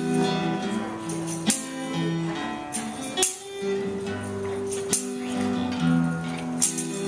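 Live instrumental holiday music: a tune of held pitched notes, with a sharp percussive hit about every second and a half.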